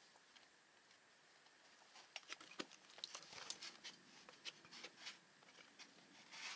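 Faint, irregular scrapes and clicks of shoes and hands on crumbly sandstone during a climb, coming thicker from about two seconds in.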